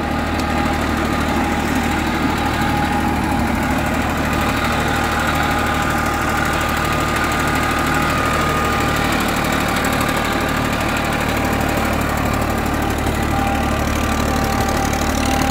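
Massey Ferguson 241 DI tractor's three-cylinder diesel engine running steadily under load, driving an 8-foot, 60-blade rotavator through the soil. It pulls the wide rotavator without strain.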